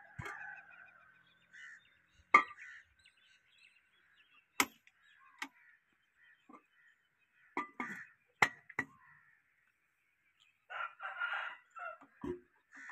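Scattered sharp metallic clicks and clinks as hands work over a stopped old diesel engine, the loudest about two seconds in. Chickens call in the background, with a longer, rougher call near the end.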